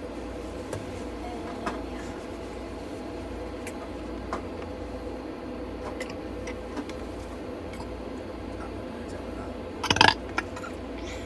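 A cat gives one short, loud cry about ten seconds in, over a steady hum and a few faint clicks.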